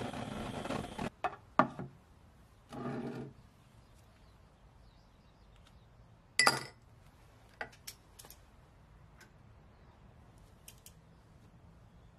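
Butane torch flame hissing, cut off about a second in, followed by a few clicks and a short burst of noise. Then one sharp clink of the metal part against a drinking glass as it is dropped into the liquid, with a few faint ticks after it.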